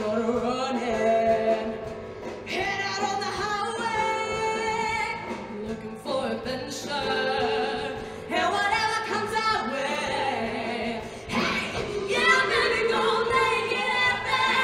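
Show choir singing, many voices together in phrases with short breaks between them.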